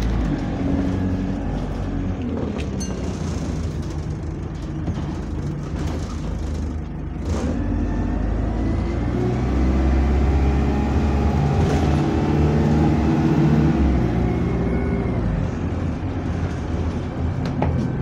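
Bus engine running while the bus drives, heard from inside the passenger saloon, its note rising and falling as the bus speeds up and slows, loudest for a few seconds in the middle. A single click about seven seconds in.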